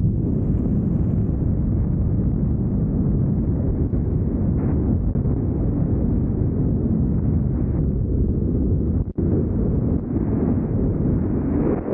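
Airflow of a wingsuit flight buffeting the body-mounted camera's microphone: a loud, steady, low wind roar, with a brief dropout about nine seconds in.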